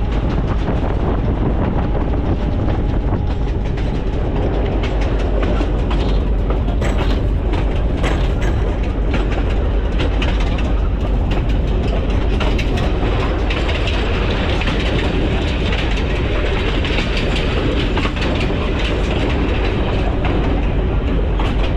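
Diesel locomotive under way: a steady low engine drone with the wheels clicking and clacking over the rail joints.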